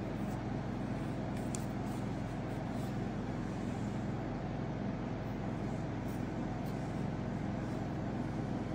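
Steady low mechanical hum over even background noise, with a few faint light clicks.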